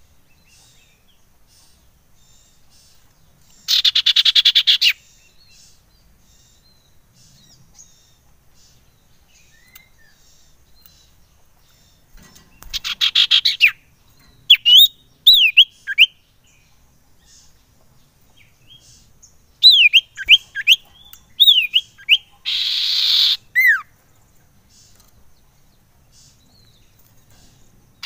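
Common iora singing in short loud phrases: rapid buzzing trills about 4, 13 and 23 seconds in, and sharp slurred whistled notes that bend up and fall away in the middle stretches.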